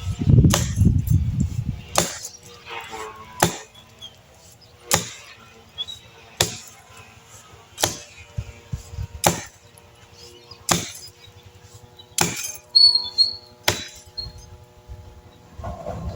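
Wood being chopped by hand with a blade: sharp chopping strokes at an even pace, about one every one and a half seconds.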